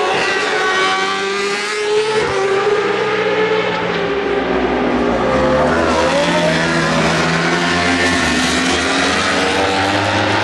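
Several superbike racing motorcycles at high revs passing on the track, their engines overlapping, with pitch rising and falling as they go by.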